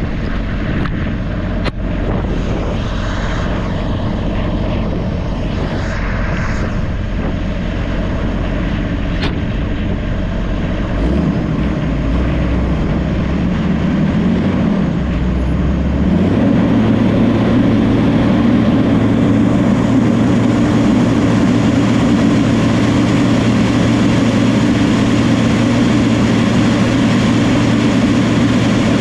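New Holland crawler dozer's diesel engine running steadily while it works. Its note shifts about eleven seconds in, and about sixteen seconds in it becomes louder with a steadier, higher hum.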